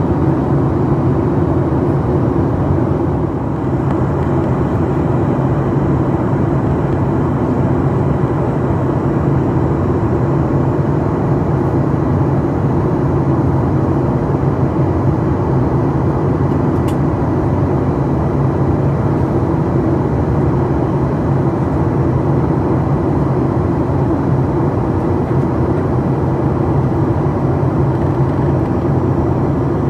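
Steady cabin noise inside a Boeing 737 MAX 8 airliner on descent: the low drone of its CFM LEAP-1B turbofan engines mixed with the rush of air past the fuselage.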